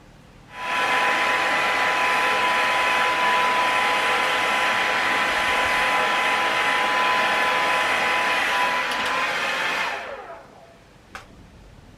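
Handheld hair dryer switched on, running steadily with a whine over its rush of air, then switched off about ten seconds in and spinning down. A single click follows shortly after.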